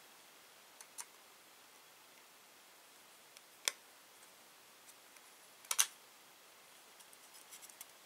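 Small sharp clicks and taps of a screwdriver tip and tiny bolts against an IDE-to-mSATA adapter's circuit board: a few separate clicks, one just under four seconds in and a double click near six seconds, then a few light ticks near the end.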